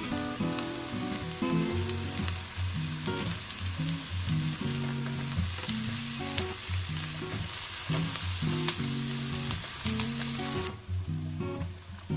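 Food sizzling as it fries in a pan, with background music playing a stepping melody underneath; the sizzle drops away near the end while the music continues.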